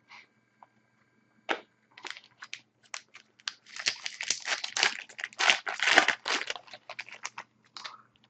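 A trading-card pack's foil wrapper being torn open and crinkled: a few scattered crackles at first, building into a dense run of crinkling and tearing, then a few last crackles near the end.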